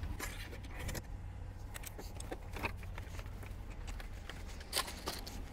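Faint handling sounds of a folding briefcase solar panel being stood up on its stand and carried: scattered small clicks and light scraping, with one sharper click about five seconds in, over a low steady rumble.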